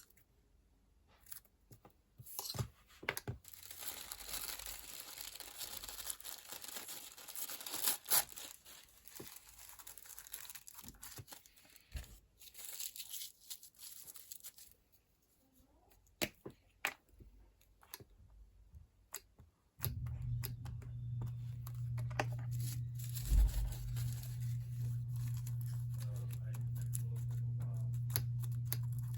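Paper tearing and crinkling, mixed with small clicks and taps, for about twelve seconds. A steady low hum then starts abruptly about two-thirds of the way through.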